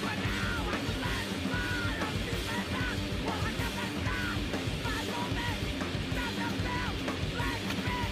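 Punk rock music: fast, loud band playing with shouted vocals over guitar and drums.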